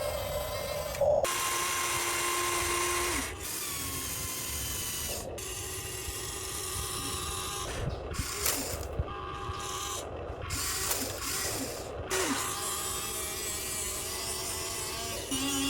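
Huina RC excavator's electric motors and gearboxes running in short stretches, a mechanical whine that shifts pitch each time a motor starts or stops, about every two or three seconds.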